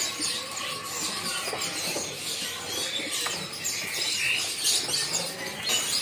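Many small caged songbirds chirping and twittering, short high chirps scattered over one another against a busy background hum.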